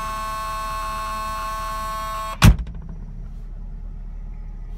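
Door-open warning buzzer of a 1986 Alfa Romeo Spider sounding a steady tone over the engine's idle. About halfway through it is cut off by one loud thud as the door is shut, and the twin-cam four-cylinder's low idle goes on underneath.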